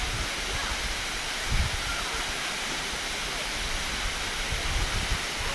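Waterfall running: a steady rush of falling water, with a brief low thump about a second and a half in.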